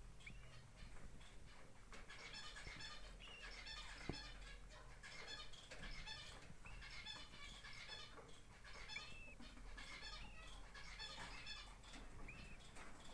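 Small pet birds chirping and twittering, with repeated short chirps and a few brief arched calls. A single sharp tap about four seconds in.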